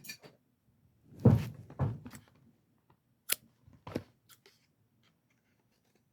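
Scissors cutting into plastic tool packaging: a couple of rustling cuts, then a few sharp snips, ending about four and a half seconds in.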